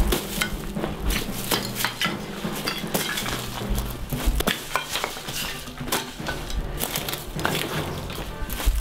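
A dense run of sharp clinks, crunches and clicks, irregular and spread throughout, over a faint low drone.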